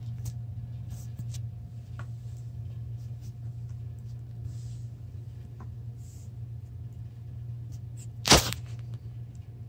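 Cats pawing at a dangled string in a fabric cat cube: faint scuffs and rustles over a steady low hum, with one short loud bump or rustle a little after eight seconds in.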